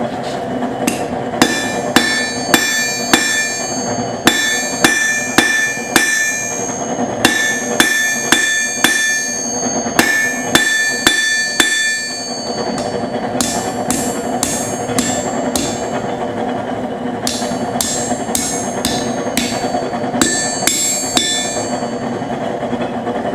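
Blacksmith's hammer striking hot rebar on an anvil in runs of regular blows, each blow leaving a bright metallic ring, over a steady background hum.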